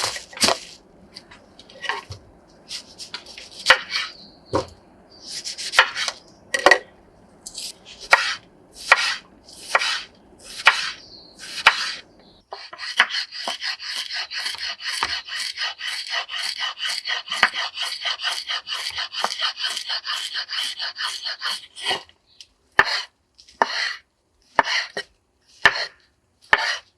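Kitchen knife chopping food on a cutting board. Irregular single cuts for about the first half, then a fast, even run of about four to five chops a second, ending with a few separate cuts.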